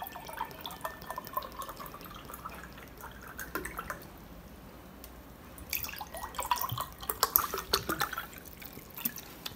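Mango drink poured from a plastic bottle into glass tumblers, splashing into the glass as it fills. Two spells of pouring: one in the first four seconds, and a louder one from about six seconds in.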